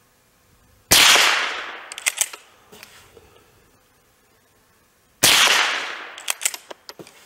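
Two shots from an FN Browning Trombone .22 LR pump-action rifle, about four seconds apart. About a second after each shot comes a quick run of clicks as the pump slide is worked to eject the case and chamber the next round.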